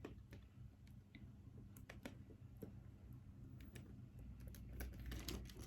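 Faint, scattered light clicks and taps from a handbag's metal chain strap being handled and put on, over a low steady room hum, the clicks coming a little more often near the end.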